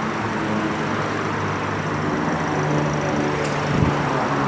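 Motor vehicle engine running steadily at idle, with a short sharp click about three and a half seconds in and a low thump just after.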